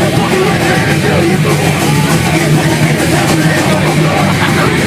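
Punk band playing live and loud, distorted guitars and drums with shouted vocals, heard as a crowd-member's recording.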